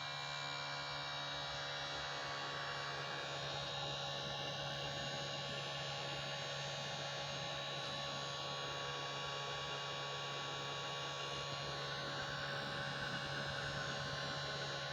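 Steady electrical hum and whir of an electric fan running at high speed, powered by a rig in which a modified DC motor drives an alternator; several steady whining tones sit over the hum.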